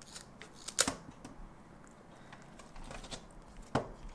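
Kitchen scissors snipping through a raw chicken's wings: a few sharp clicks of the blades, the loudest about a second in and another near the end, with fainter ticks between.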